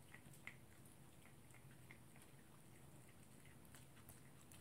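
A poodle chewing its food: faint, scattered little crunching clicks, one slightly louder about half a second in.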